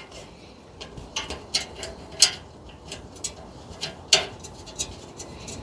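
Small metal parts of a gas water heater's pilot assembly clicking and tapping irregularly as the orifice and its fitting are worked into place by hand, with the loudest clicks about two and four seconds in.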